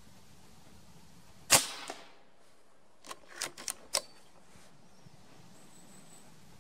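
Reximex Throne PCP air rifle firing a .22 pellet: one sharp shot about 1.5 s in, with a fainter knock a moment after. About a second and a half later comes a quick run of four or five clicks as the side lever is worked back and forward to load the next pellet.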